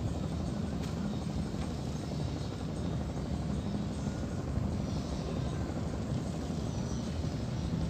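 A boat engine running steadily with a constant low drone.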